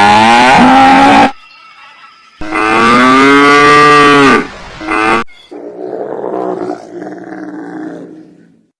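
Cow mooing: the end of one long moo, then a second long moo, then a brief third call. About five seconds in, a quieter, rougher animal call takes over until near the end.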